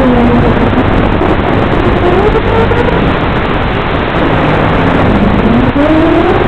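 Electric motors and propellers of an FPV drone whining under heavy hiss, heard through its onboard microphone. The pitch drops early, rises, dips again and climbs near the end as the throttle changes.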